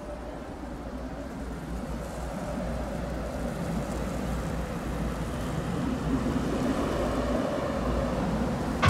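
Intro of a metal track: a noisy, rumbling drone that grows steadily louder, until the full band comes in abruptly with distorted guitars right at the end.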